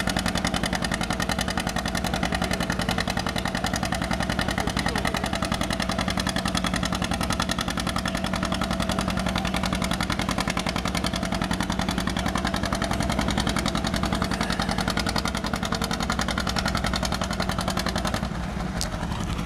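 Antique John Deere two-cylinder tractor engine running hard under load as it drags a weight-transfer sled, a steady rapid pulse of exhaust beats. It eases off slightly near the end.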